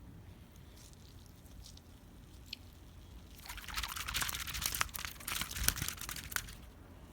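A poop toy making wet, crackly squelching water noises for about three seconds, starting about halfway through, with a few faint clicks before.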